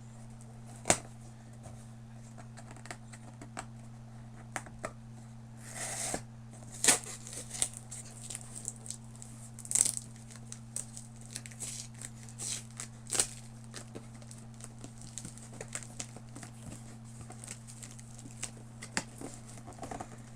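Shipping box being opened by hand: tape tearing and cardboard and packing material crinkling and rustling, with scattered sharp knocks and clicks as the box is handled.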